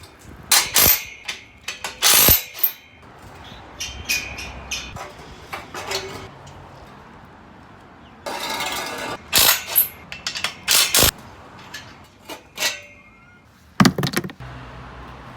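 Metal clanks and clicks of a socket wrench and steel garden swing-chair parts being taken apart: a string of sharp knocks, with a short rasping stretch a little past the middle.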